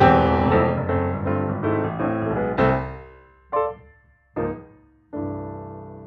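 Background piano music: a run of struck notes, then two short chords and a final chord that rings out and fades, ending the piece.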